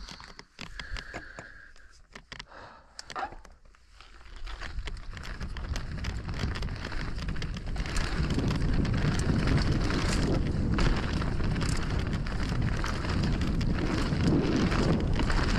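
Mountain bike setting off down a loose loam dirt trail: a few clicks first, then rough tyre and riding noise over the loose dirt that builds from about four seconds in as the bike picks up speed and stays loud.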